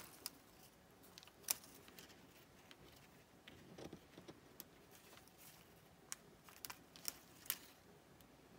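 Faint room tone broken by scattered light clicks and taps of small cardstock pieces being handled and pressed onto a card.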